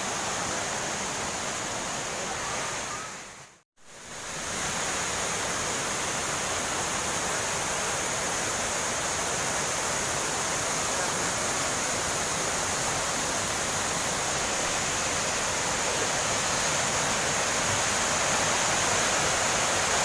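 Waterfall, a steady rush of falling water that cuts out briefly about four seconds in and then comes back unchanged.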